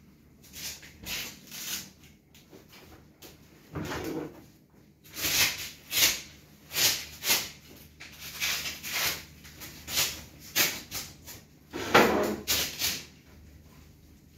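Large fabric display graphic rustling and swishing in short, irregular bursts as it is pulled, stretched and pressed onto the frame of a pop-up display, the loudest swish about twelve seconds in.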